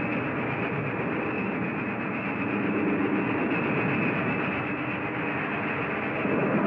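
Steady mechanical rumble and clatter of a war-scene sound effect, growing slowly louder.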